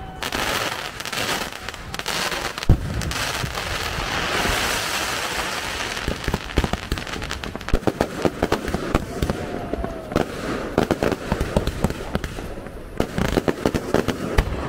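Fireworks display: ground fountains hissing and crackling, with a single bang about three seconds in, then from about six seconds on a rapid run of pops and bangs as aerial shells burst with crackling stars.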